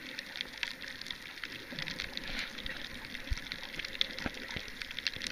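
Underwater ambience over a reef: a steady crackling hiss with many tiny scattered clicks and a few stronger knocks, heard underwater.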